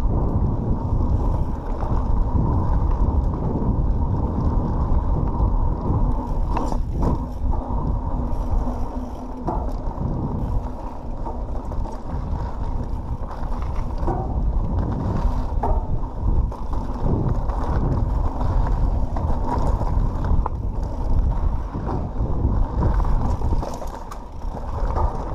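Pivot Switchblade 27.5+ mountain bike being ridden along a dirt trail: a continuous low rumble of the plus-size tyres rolling over the ground, with drivetrain and frame rattle and scattered sharp knocks from bumps, recorded on an action camera mounted on the rider or bike.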